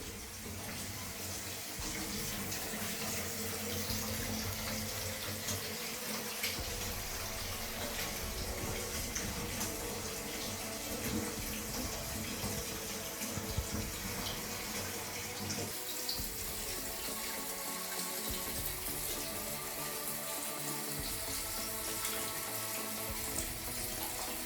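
Water running from a tap into a bathtub: a steady rushing splash, with background music underneath.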